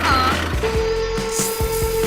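Background music with a steady beat, joined just over half a second in by a steady, even hum.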